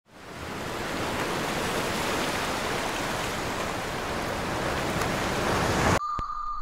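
Ocean surf, a steady wash of breaking waves that fades in at the start and cuts off abruptly about six seconds in. A steady high electronic tone follows.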